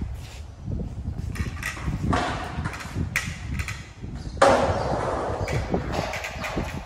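Kick scooter's small wheels rolling over concrete, with scattered sharp clacks and knocks. It turns louder and rougher about four and a half seconds in.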